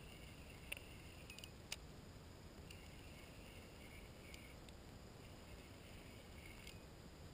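Near silence: faint outdoor ambience with a faint high-pitched buzz that comes and goes in stretches of about a second, and two soft clicks in the first two seconds.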